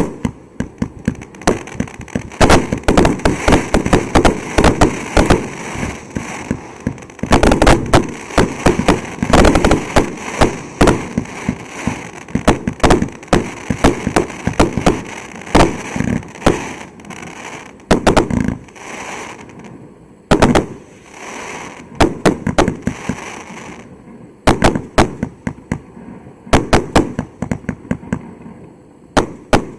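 A fireworks cake (multi-shot battery) firing shot after shot, several a second, with bangs and crackling. It pauses briefly a few times in the second half before firing on.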